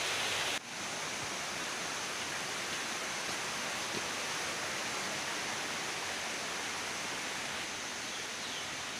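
A fast-flowing, muddy forest stream rushing, cut off abruptly under a second in. A softer steady hiss of rainforest ambience carries on after the cut.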